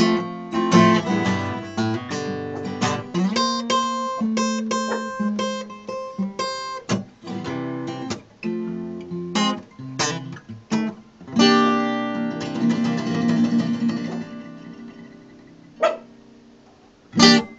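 Steel-string acoustic guitar fingerpicked in a blues style: single-note licks over bass runs, then a final chord about eleven seconds in that rings out and fades away. Two sharp knocks come near the end, the second one loud.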